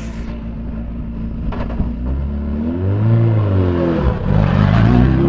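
Rally car engine under acceleration. The note climbs from about two seconds in, dips sharply about four seconds in as the revs drop, then climbs again.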